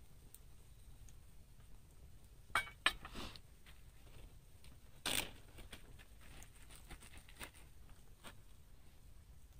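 A few sharp clicks and knocks, then a short scraping rustle a couple of seconds later, from objects being handled.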